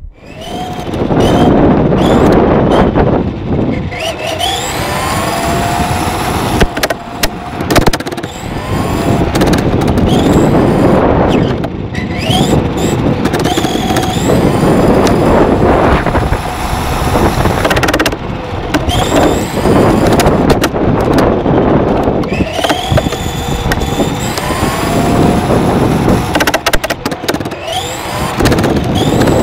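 Tamiya TA-05 IFS RC car's 540 electric motor and drivetrain, heard from a camera mounted on the car. The motor's whine rises in pitch again and again as the car accelerates, over a loud rushing noise of the tyres rolling on the court surface.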